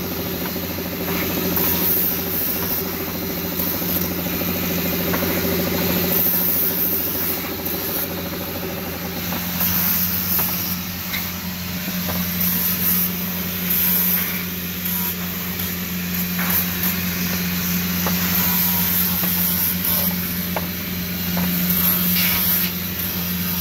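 A motor running steadily with a low hum, with hissing that comes and goes over it.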